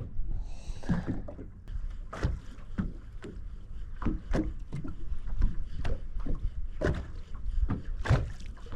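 Water slapping and knocking irregularly against the hull of a drifting bass boat, over a steady low rumble of wind and waves.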